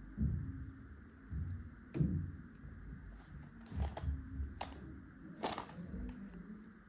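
Handling noises: a few separate clicks and rustles with soft low knocks, typical of a chocolate packet being handled and opened.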